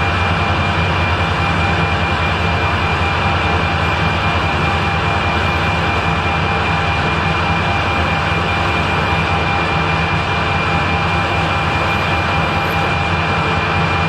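Metal lathe running steadily under power, its motor and gearing giving a constant hum with a steady high whine.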